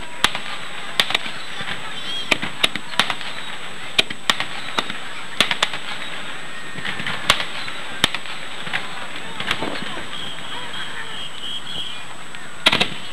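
Aerial fireworks shells bursting: a run of sharp bangs and crackles at irregular intervals over a steady background hiss, with a quick cluster of bangs near the end. A high wavering tone shows briefly about two seconds in and again for a second or two late on.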